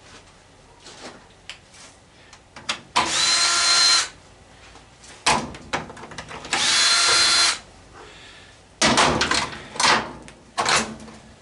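Power drill fitted with a 1/4-inch nut driver spinning screws out of a washing machine's housing, twice, about a second each time; each run starts with a rising whine that then holds steady. Metal clattering and rattling of loosened parts comes between and after the runs.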